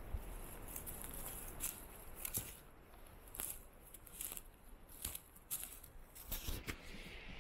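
Irregular crunching footsteps on a trail, roughly one every half second to a second, over a faint background hiss.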